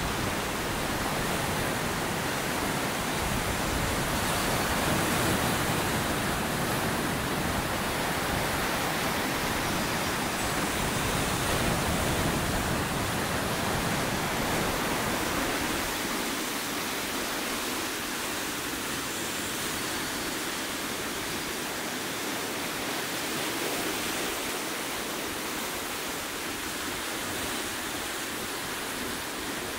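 Steady rush of ocean surf breaking and washing over rocky ledges. A deep rumble under it fades about halfway through, leaving a softer hiss of water.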